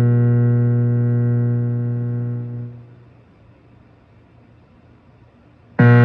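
Spark 40 guitar amplifier's buzzing mains hum, a steady low hum with many overtones, fading out about two and a half seconds in as its noise gate threshold is raised and the gate closes. It stays much quieter until the hum cuts back in abruptly near the end.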